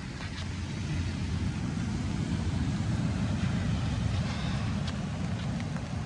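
Steady rain hiss under a low, gusting rumble of wind on the microphone, a little louder from about a second in.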